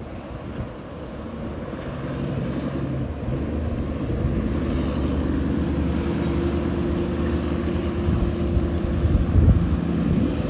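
Heavy diesel truck engine approaching with a steady low drone, growing louder over the first few seconds and then holding, over traffic and wind on the microphone.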